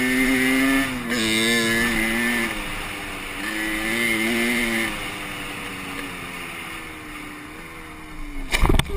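A motor engine running with a steady pitched hum that wavers up and down and slowly fades over several seconds. Near the end, a few sharp knocks.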